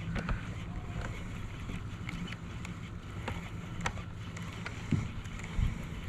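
Steady low mechanical hum from equipment on a bass boat, with scattered light knocks and clicks on the boat.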